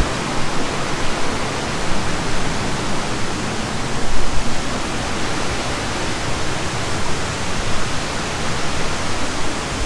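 Waterfall roaring: a loud, steady rush of falling water that swells briefly about four seconds in.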